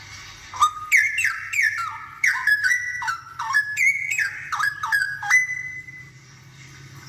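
Straw-headed bulbul singing: a loud, rapid string of short, rich whistled notes, each stepping or sliding down in pitch, starting about half a second in and stopping about two seconds before the end.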